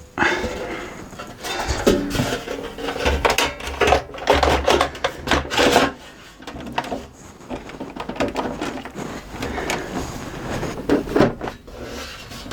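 The metal top cover of an LG VCR/DVD combo being fitted back onto the chassis by hand: an irregular clatter of knocks, clicks and short scrapes.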